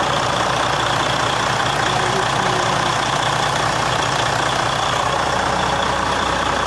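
Detroit Diesel DD15 inline-six diesel in a 2012 Freightliner Cascadia idling steadily, just restarted after a fuel filter change and hand-priming of the fuel system.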